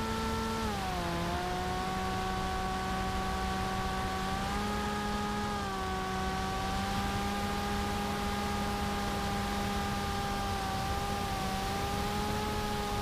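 Electric motor and propeller of a TBS Caipirinha flying wing, heard from its onboard camera: a steady whine over wind rush. The pitch rises briefly at the start, drops about a second in, and lifts slightly again for a couple of seconds around the middle as the throttle changes.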